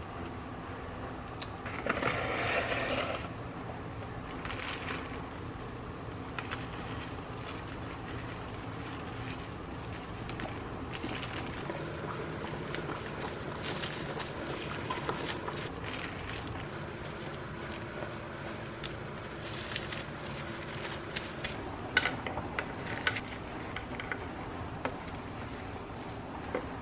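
Kitchen food-preparation handling sounds: scraping, light crackling and soft knocks over a steady low hum. There is a louder rustling stretch about two seconds in and a few sharper clicks near the end.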